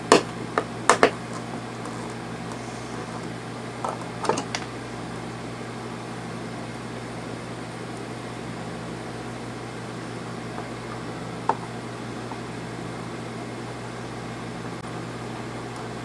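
A few sharp plastic clicks and knocks as a propane/carbon monoxide detector is pressed into its wall mounting: a cluster in the first second, a pair about four seconds in and a single tick later. Under them runs a steady low mechanical hum.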